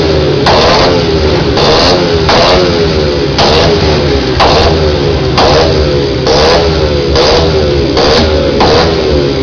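Vehicle engine revved over and over in short throttle blips, about one a second, over a steady low running note.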